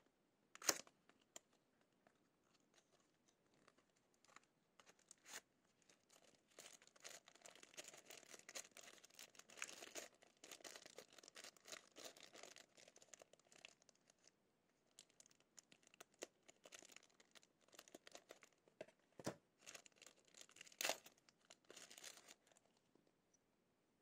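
Thin plastic packaging bag crinkling and rustling as it is handled and pulled out of a small cardboard box, in two stretches. A few sharp clicks of packaging being handled, the loudest about a second in and another near the end.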